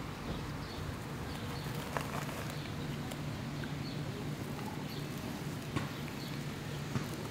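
Domestic cat purring steadily while its head is stroked, a low even rumble with a few faint clicks over it.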